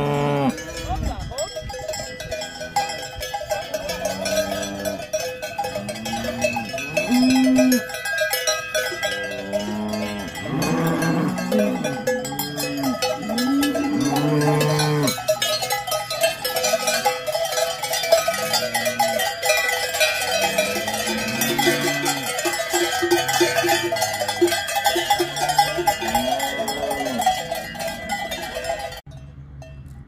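Many cowbells clanging irregularly as a herd of Brown Swiss cattle moves about, with repeated low rising-and-falling calls of cows lowing. The clanging drops away sharply near the end.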